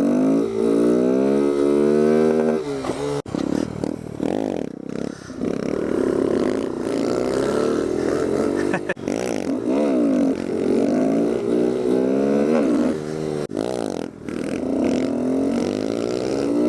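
Kawasaki Z125's small single-cylinder engine running while riding, its pitch rising and falling again and again as it revs up and shifts.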